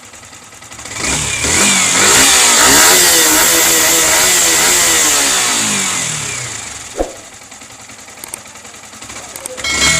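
Yamaha R15 V4's single-cylinder engine revved by hand from idle, the revs rising and falling several times before settling back to idle, with a newly fitted timing chain tensioner. A sharp click comes about seven seconds in.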